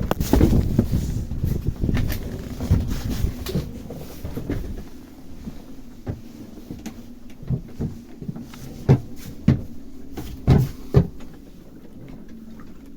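Cupboard doors and gear being handled in a small sailboat's cabin: irregular knocks and clunks, busy at first, then a few separate sharper knocks in the second half.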